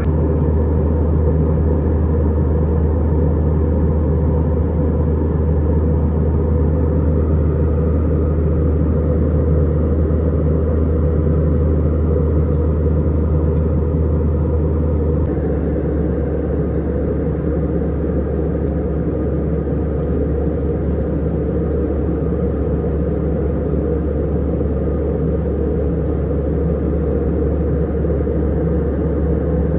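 Steady low drone inside an Airbus A320 cabin: engine and airflow noise heard from a window seat. The rumble drops a little about halfway through.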